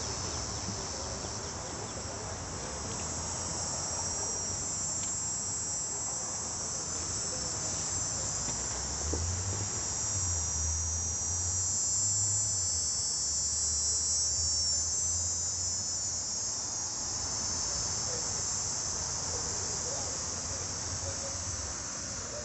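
Steady high-pitched chorus of crickets, with a low hum underneath that grows louder around the middle.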